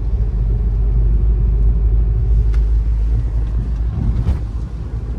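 Road and engine rumble inside a moving car, a steady low drone with a few faint ticks.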